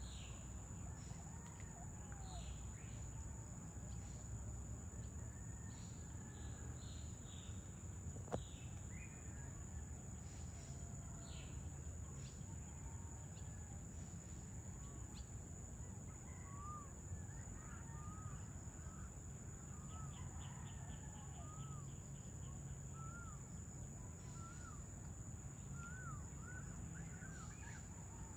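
Outdoor evening ambience: a steady high-pitched drone of insects, with birds calling in short chirps and whistled notes that come more often in the second half, over a low background rumble. One sharp click about eight seconds in.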